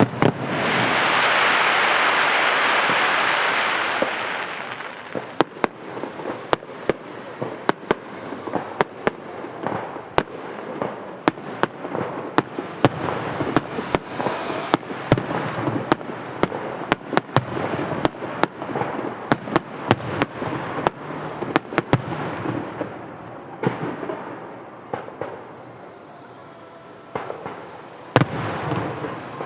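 Fireworks display: a loud rushing hiss for the first few seconds, then a long run of sharp bangs and crackles from shells bursting overhead. The bangs thin out for a few seconds near the end before another bang sets off a fresh run.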